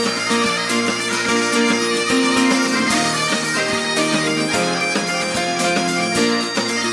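Traditional Scottish band music: bagpipes leading a tune with fiddle, over a steady beat.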